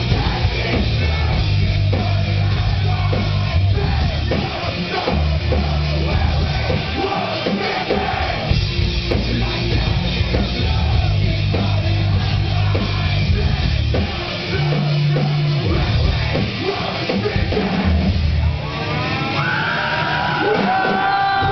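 Metal band playing live: distorted guitars and heavy bass over driving drums.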